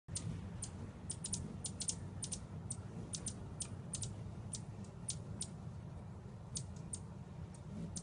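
Hummingbirds giving short, high-pitched chip calls, irregular and rapid, a few a second, over a steady low rumble.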